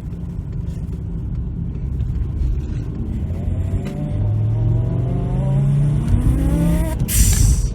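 Volkswagen Rabbit's engine pulling under acceleration, heard from inside the car, with a rising whine over it, then a loud hissing 'psh' near the end: a man imitating a turbo spooling up and its blow-off valve with his mouth.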